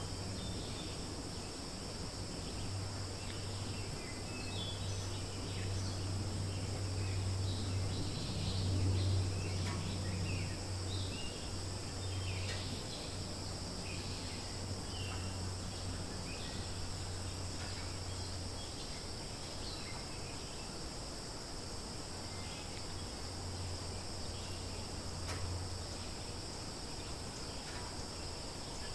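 Forest ambience: a steady high-pitched insect chorus drones throughout, with scattered short bird chirps and a low steady hum underneath.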